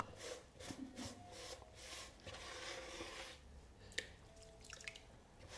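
Faint rubbing and scraping of wet clay slurry being scraped by hand out of a plastic bucket into a larger bucket, with a short tap about four seconds in.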